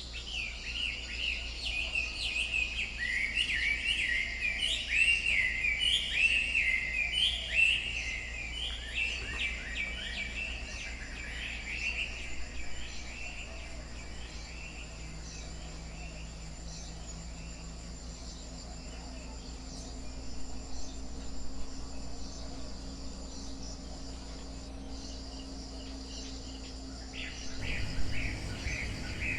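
Forest soundscape of many songbirds chirping and calling, busiest in the first dozen seconds and sparser after, over a steady high insect drone. A low rumble comes in near the end.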